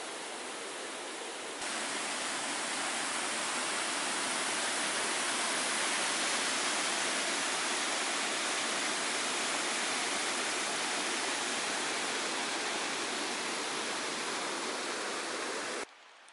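Creek water rushing over rocks and churning into whitewater, a steady full rush of noise. It steps up louder about a second and a half in and cuts off abruptly just before the end.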